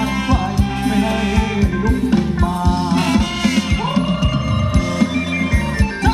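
Live band playing fast Thai ramwong dance music, with a steady drum beat and sung melody. A long note is held through the second half.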